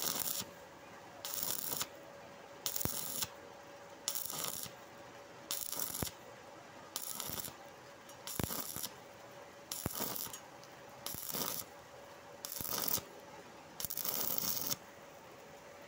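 Stick welding arc crackling in short bursts, about one every one and a half seconds, as the electrode is struck and broken off again to fill a wide gap in steel plate. A faint steady hum runs underneath, and the bursts stop shortly before the end.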